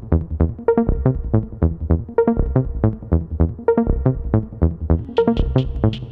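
Electronic background music with a steady, quick beat; a brighter high part comes in about five seconds in.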